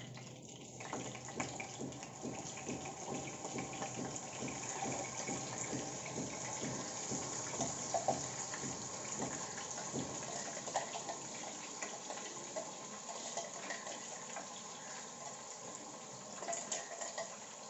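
Wet masala paste of onion, tomato, ginger and garlic sizzling in hot oil in a wok as it is poured in: a steady hiss with many small crackles and spatters.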